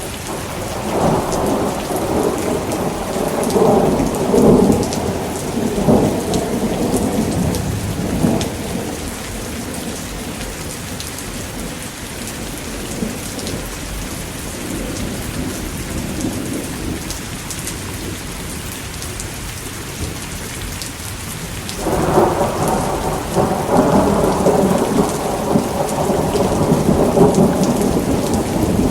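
Steady rain falling, with rolling thunder: a long rumble through the first several seconds, then a second rumble that breaks in suddenly about three quarters of the way through and keeps rolling.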